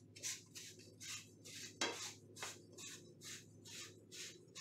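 Copper pipe end being sanded by hand to clean it for soldering: quick rasping strokes, about two to three a second, with one sharper knock a little under two seconds in.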